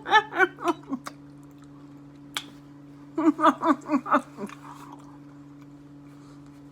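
A woman chewing food, with two runs of short, quick voiced sounds from her throat, near the start and again about halfway through. A single sharp click falls in between, and a steady low hum runs underneath.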